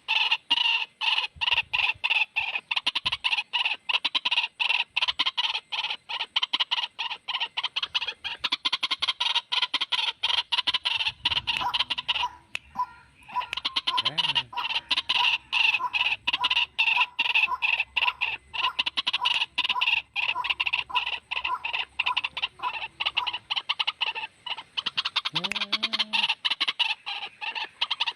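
White-breasted waterhen (ruak-ruak) lure call: a fast, unbroken series of short, harsh repeated notes, several a second. The series breaks briefly near the middle.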